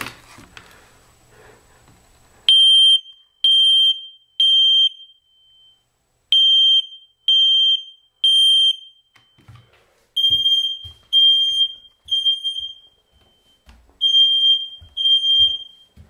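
Smoke alarm's piezo horn sounding on test. It starts about two and a half seconds in with high-pitched beeps in groups of three, a short pause between groups: the temporal-3 evacuation pattern. A few soft handling thumps sit under the later beeps.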